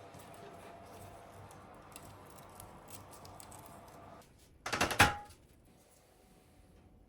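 A quick cluster of clicks ending in a sharp knock about five seconds in, over a faint hiss with scattered light ticks.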